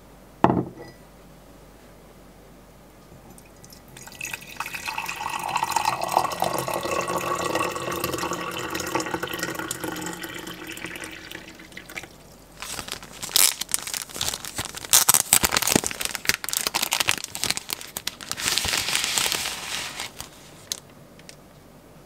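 A ceramic mug knocked down onto a counter top, then hot water poured from an electric kettle into the mug for about eight seconds. After that comes a run of papery crinkling and tearing as a tea bag's paper wrapper is opened.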